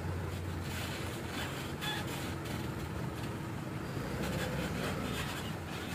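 Minibus engine running with a steady low hum as the bus drives slowly away.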